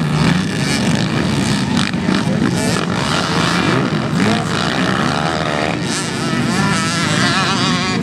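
Several dirt bike engines running and revving at once, overlapping continuously, with one engine's pitch warbling up and down a few seconds in.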